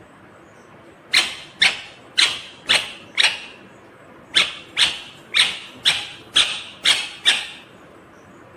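Indian ringneck parakeet giving a run of short, sharp, shrill calls, about two a second. They start about a second in: five calls, a short pause, then seven more.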